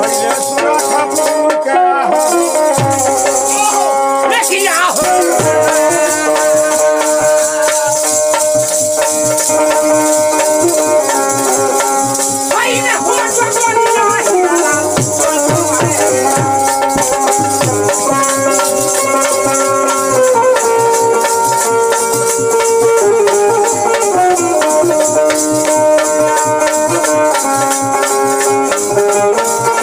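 Folk song with a man singing over wooden kartal clappers rattling, a steady harmonium and dholak drum strokes. The voice glides up and falls away about four seconds in and again near the middle.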